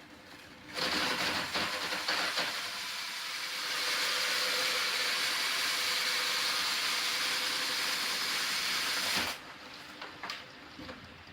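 A loud, steady hiss starts about a second in, holds for about eight seconds and cuts off suddenly, with a few knocks around it.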